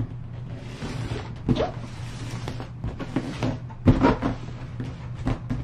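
Large cardboard box handled and turned on a tabletop: cardboard scraping across the surface, with several knocks and a louder thump about four seconds in. A steady low hum runs underneath.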